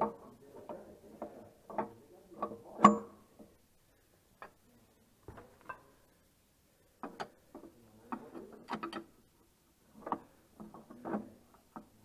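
Irregular bursts of metal clicks and clinks from hand tools working on dual-wheel bolts, with short pauses between them and one sharper clink about three seconds in.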